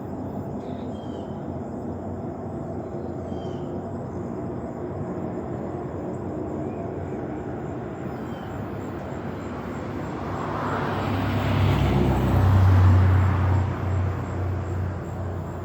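A steady, loud, low roar like rushing air coming from the sky, of unknown origin. About two-thirds of the way in a road vehicle passes, swelling to be the loudest sound and then fading.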